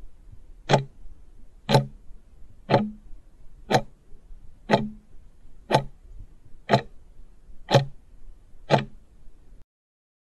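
Clock-ticking sound effect marking the seconds of a quiz countdown timer: a sharp tick once a second, nine times.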